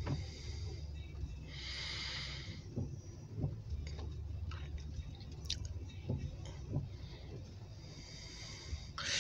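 Steady low rumble inside a car's cabin, as from its engine idling, with scattered faint ticks of rain on the car and two short hissing swishes, one about two seconds in and a louder one near the end.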